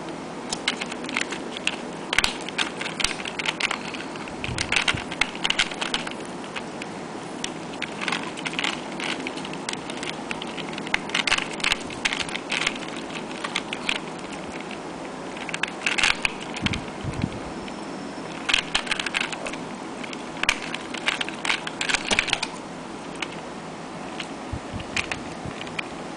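Pyraminx puzzle turned rapidly in the hands during a speedsolve: quick runs of plastic clicking and clacking from its turning pieces, in bursts separated by short pauses. The clicking stops about three-quarters of the way through, when the solve is finished.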